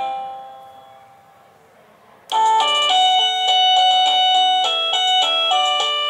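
IntendVision wireless doorbell receiver playing its chime tunes: the last notes of one melody fade out, and after a short pause a new electronic melody starts abruptly a little over two seconds in, a quick run of bright notes.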